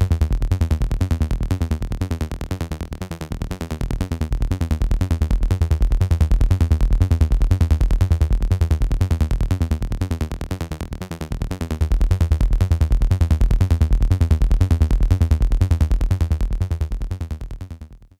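Electronic dance music: a fast, even drum-machine beat with heavy synth bass, dipping in level twice and fading out near the end.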